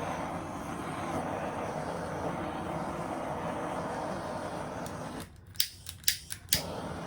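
Handheld butane torch burning with a steady hiss that cuts out about five seconds in, followed by a few sharp clicks of the igniter: the torch has run low on gas.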